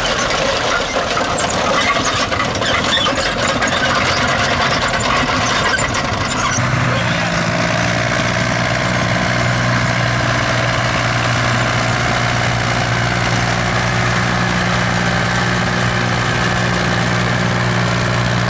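Old tractor engines running. From about seven seconds in, one engine settles into a steady, even note, held under load as the tractors pull against each other.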